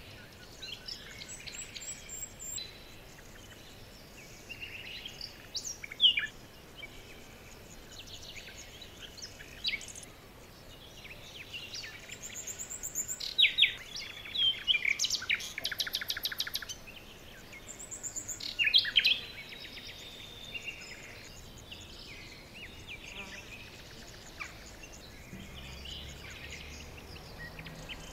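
Songbirds chirping and trilling: scattered short chirps and quick rattling trills, with the busiest, loudest spells a little before halfway and again about two-thirds through, over a faint steady hiss.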